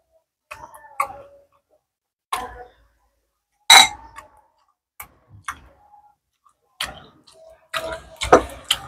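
Close-up mukbang eating sounds: irregular sharp clicks and smacks of chewing dried salted fish and of a spoon and fingers against ceramic plates. The loudest comes about four seconds in, with a quicker run of clicks near the end.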